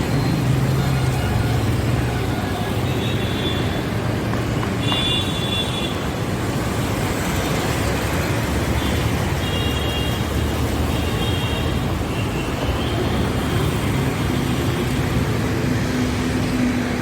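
Steady road traffic noise with engines running, and a few brief high-pitched tones scattered through the middle.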